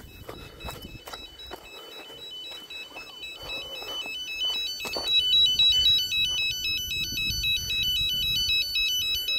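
Electronic carp bite alarm sounding a fast warbling two-tone beep, set off by the wind rather than a fish: the alarm is over-sensitive and goes off at the slightest movement of the line. It starts faint and gets much louder about four seconds in.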